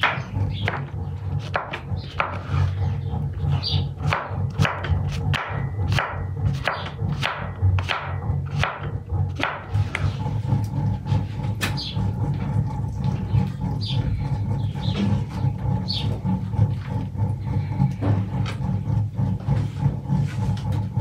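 Kitchen knife slicing button mushrooms on a wooden cutting board: crisp, even knocks of the blade on the board about twice a second, thinning out about halfway through. Birds chirp briefly now and then, over a steady low rumble.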